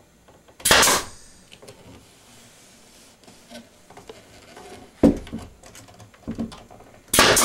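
Pneumatic finish nail gun firing 2.5-inch finish nails through wooden chair rail moulding into the wall studs: three sharp shots, about a second in, about five seconds in and near the end, with a few fainter knocks between.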